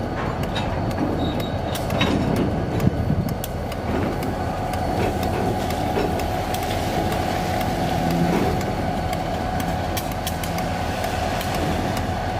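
EMD diesel locomotives, two SD40-2s and an SD9, running with a train of freight cars, with scattered clicks and clanks from the cars. A steady high tone grows stronger about six seconds in.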